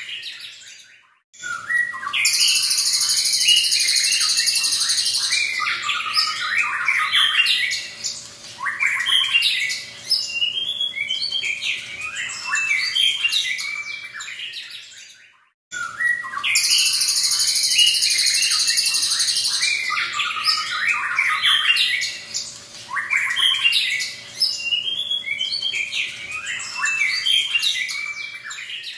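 White-rumped shama (murai batu) singing: a long, high buzzy phrase followed by a run of varied whistles and chirps. The same passage of about fourteen seconds plays twice, each time after a brief silence.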